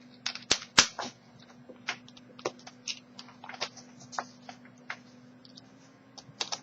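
Irregular metallic clicks and ticks of two tension wrenches working a Kasp dimple-key bike lock's cylinder, with two sharp snaps about half a second and a second in.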